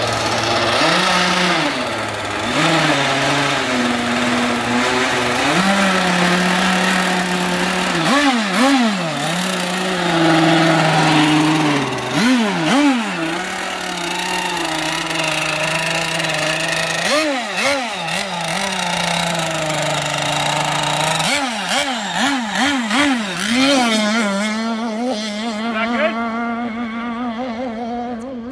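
Small gas two-stroke engine of an RC outrigger boat, a Zenoah, idling with a buzzy note and blipped in quick bursts of throttle several times, then revving up and pulling away near the end as the boat runs off across the water.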